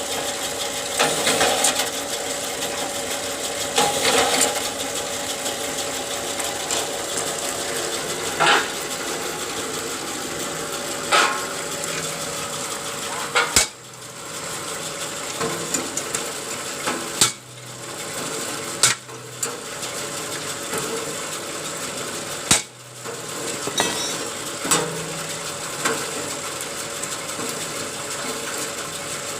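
Satay skewer making machine running: a steady motor hum with metallic clattering, and a louder knock every few seconds.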